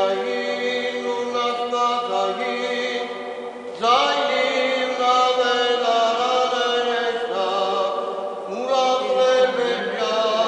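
A priest chanting Armenian liturgical chant: one male voice holding long notes and sliding between them, starting fresh phrases about four seconds and nine seconds in.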